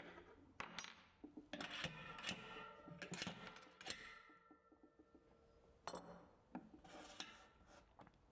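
Light metal clinks, taps and scrapes of bicycle hub parts and a service tool as the end cap is worked off an MTB hub, several clinks ringing briefly. They come thickest in the first four seconds and again about six to seven seconds in.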